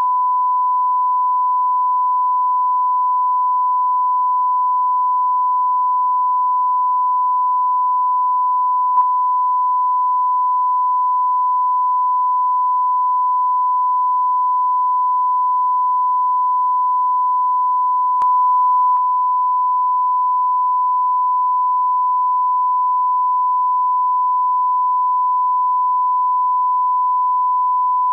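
Loud, continuous electronic beep: a single steady mid-pitched tone held without a break, with faint clicks about nine and eighteen seconds in.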